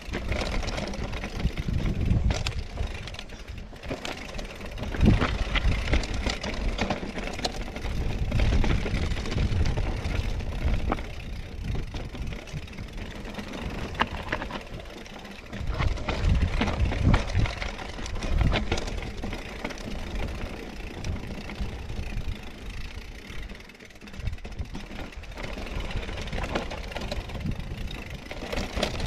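Mountain bike (Scott Spark RC) descending a rough trail: an uneven, gusting wind rumble over the microphone, with tyre noise and scattered clicks and knocks from the bike rattling over the ground.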